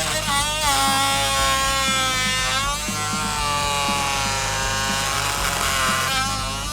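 Oscillating multi-tool buzzing as it cuts, its pitch sagging and recovering under load near the start, about three seconds in and near the end. Background music plays underneath.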